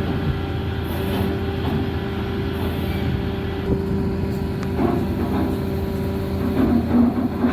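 Cargo ship's diesel machinery running, a steady low drone with a constant hum, as the ship gets ready to move off the berth.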